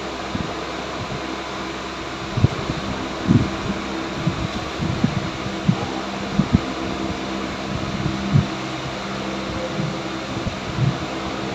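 Steady mechanical hum with scattered short knocks and clicks of hoses and fittings being refitted on the engine.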